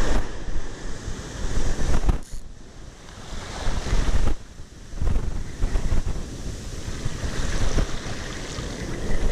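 Ocean surf breaking and washing up the beach, with wind buffeting the microphone in gusts; it drops away briefly twice.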